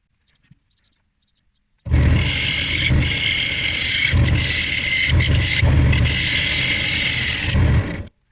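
A loud power tool running for about six seconds, starting and stopping abruptly, with a throbbing low hum under a steady hiss.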